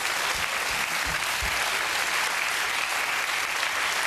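Studio audience applauding, a steady wash of clapping, with a few low thumps in the first second and a half.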